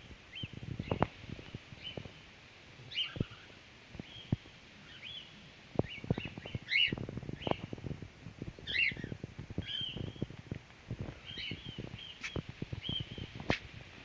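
Cockatiels calling in flight: short, high chirping contact calls, about one a second, over low thumps and rumbles on the microphone.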